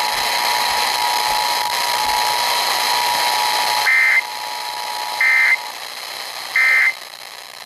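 Emergency Alert System signalling over radio hiss: a steady two-note tone runs for about four seconds. Then come three short bursts of screechy digital data tones about 1.3 seconds apart, the end-of-message code that closes the alert.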